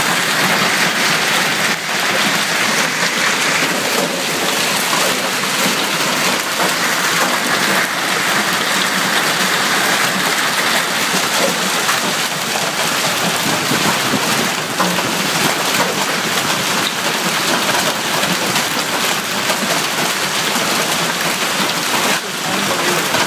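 Hailstorm: hail and heavy rain falling on lawn, street and parked cars, a dense steady hiss with scattered sharper ticks of stones hitting.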